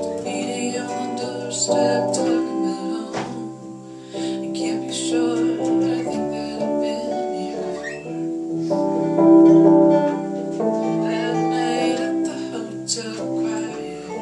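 Music played on a plucked guitar, sustained notes and chords changing every second or two.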